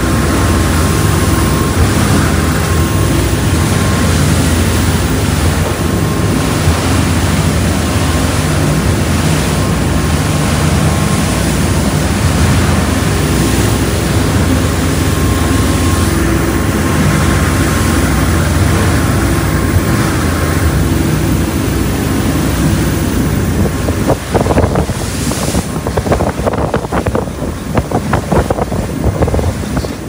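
Sailing catamaran under way at sea: wind buffeting the microphone over the rush of the bow wave and wake along the hull, with a steady low hum underneath. The sound turns choppier for the last few seconds.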